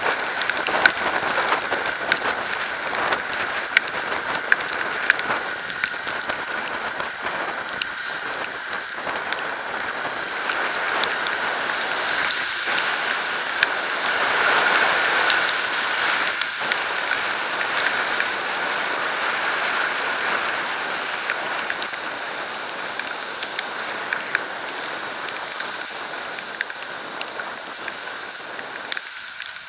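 Rain and road spray spattering on a camera: a steady wet hiss dotted with many sharp drop hits, swelling louder around the middle.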